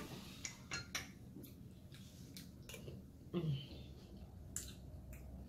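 Metal spoon clicking against a glass bowl of cereal and milk, and crunchy cereal being chewed: scattered sharp clicks, with a short hum from the eater a little past three seconds in.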